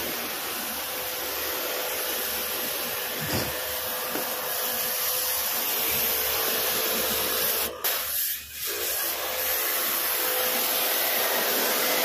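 Steady rushing air noise with a faint steady hum, as from a rooftop package air-conditioning unit's fans running. The sound briefly drops out about eight seconds in.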